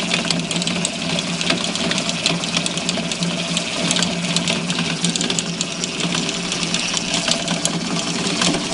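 Hobart 20-quart mixer running on its third (high) speed, the flat paddle beating a flour, water and oil dough: a steady motor and gear hum with many quick, irregular ticks over it.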